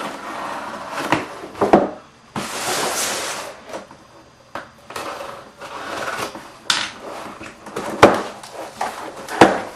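Cardboard box being opened by hand: packing tape slit and peeled off, with one rasping tear of about a second a couple of seconds in, among knocks, scrapes and rustles of the cardboard flaps.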